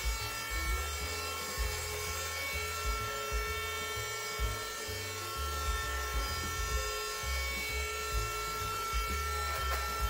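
iRobot Roomba i5 robot vacuum running while it cleans, a steady motor and fan whine of several constant tones over an uneven low rumble.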